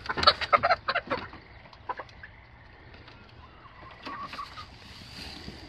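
Chickens squawking and clucking while being pushed in through the coop door, a loud flurry in the first second or so, then only a few faint clucks.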